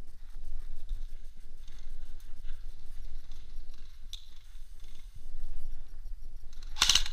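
Scattered faint clicks and knocks of an airsoft game. Near the end comes one loud, sharp, short burst close to the microphone, as the player's airsoft rifle fires while aimed out of a window.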